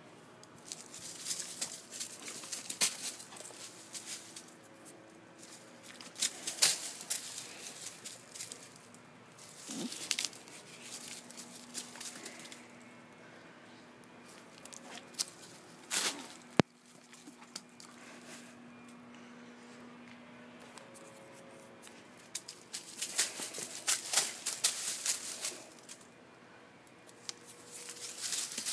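Dry fallen leaves rustling and crunching in repeated bursts as a German Shepherd dog runs and pounces through them, with quieter gaps between. One sharp click about halfway through.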